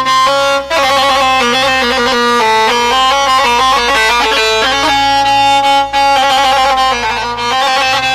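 Instrumental Arabic folk dance music: a wind-instrument melody, alternating held notes with quick ornamented runs, over a low steady drone.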